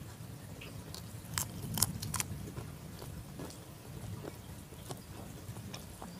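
People eating with their hands, chewing, with a few sharp crunches about one to two seconds in, over the steady low noise of heavy rain.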